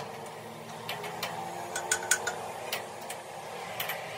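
Irregular metallic clicks and clinks as the lathe's tool post is worked by its clamping handle, about eight in all, over a steady low hum.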